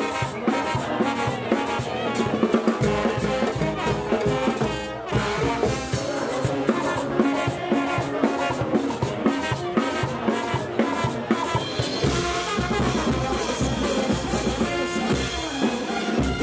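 Brass band with drums playing a lively tune, the horns carrying the melody over a steady beat; the band drops back briefly about five seconds in.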